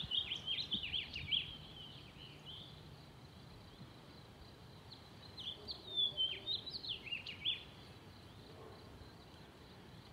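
A small songbird singing two quick phrases of high chirping notes, one right at the start and another about five seconds in, over faint steady outdoor background noise.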